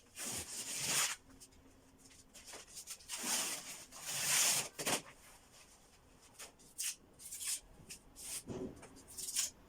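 Old double-layer wallpaper being torn off a wall: dry paper ripping in long rasping pulls, the biggest in the first second and from about three to five seconds in, with short crackles between.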